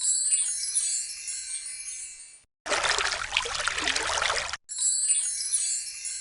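Operating-system startup/shutdown sound effects played back to back: a high, shimmering wind-chime-like sparkle that fades out over about two and a half seconds, a brief rush of noise, then the same sparkle again near the end.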